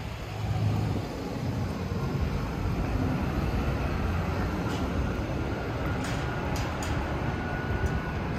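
Steady low rumble of road traffic and bus engines, with a few light clicks about six to seven seconds in.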